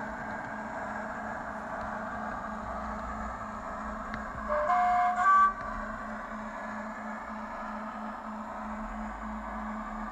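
Model GWR AEC diesel railcar with a YouChoos sound decoder, its recorded diesel engine running steadily through the onboard speaker. About halfway through it sounds a brief two-tone horn, a lower note then a higher one.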